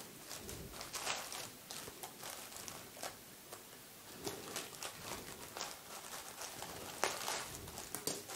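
Plastic courier bag rustling and crinkling as it is handled and cut open with scissors, with scattered faint clicks and snips, the sharpest about a second in and near the end.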